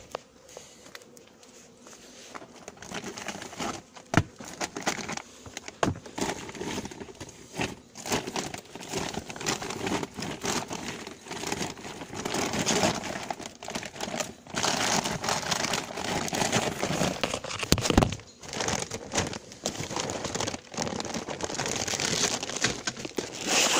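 Continuous rustling and crinkling handling noise with scattered knocks, from things being rummaged through and rubbed close against a phone's microphone. It grows louder and denser through the second half.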